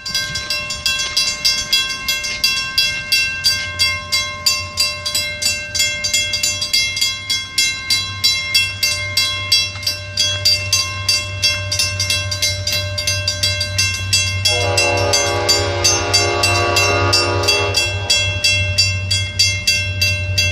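Railroad crossing bell ringing steadily at a few strikes a second, while an approaching train's low rumble builds from a few seconds in. The locomotive's horn sounds one long blast about two-thirds of the way through.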